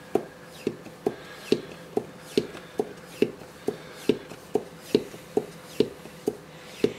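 Hand vacuum pump on a PrintDry filament container lid being pumped to draw a vacuum. Each stroke gives a sharp plastic click with a short hiss of air, about two clicks a second in an even rhythm.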